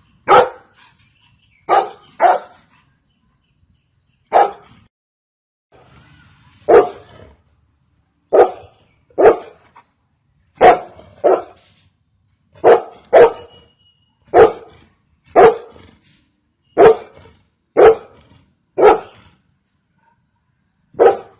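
Golden retriever barking: about seventeen single barks, some in quick pairs, with short pauses between them.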